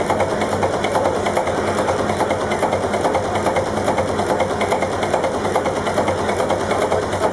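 Old MAN multi-cylinder diesel engine running steadily: an even, fast clatter of valve gear and firing knocks over a steady low hum.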